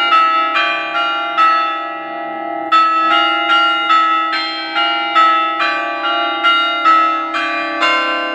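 Several church bells struck one after another at differing pitches, about two strokes a second, each ringing on over a steady low hum. There is a pause of about a second after the first few strokes.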